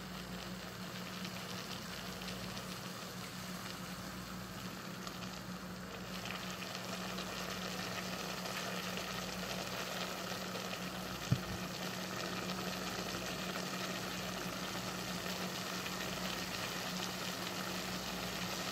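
Chicken hearts and vegetables simmering in a little liquid in a stainless steel pot, a steady bubbling crackle as the hard potatoes and carrots cook down to soften. The crackle grows a little louder about a third of the way in, with a low steady hum beneath and one sharp click a little past halfway.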